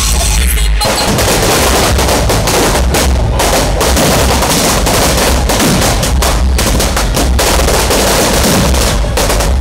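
A string of firecrackers going off in a rapid, continuous run of cracks, starting about a second in, over loud music with a heavy bass beat.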